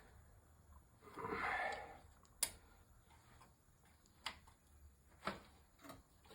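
Hand tools working small bolts on metal: a brief scraping rustle about a second in, then four separate sharp clicks.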